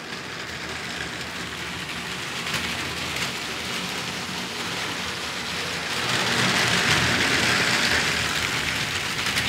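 Two motorised LEGO trains with heavy wagons rolling on plastic LEGO track, one on the old wheels and one on the new plastic wheels, making a steady rolling rattle of wheels on the rails. It grows louder from about six seconds in as the trains pass close by.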